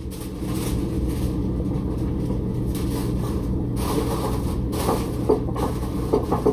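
A big pot of water with corn on the cob at a rolling boil, giving a steady low rumbling bubble. A few light knocks of kitchen items come in near the end.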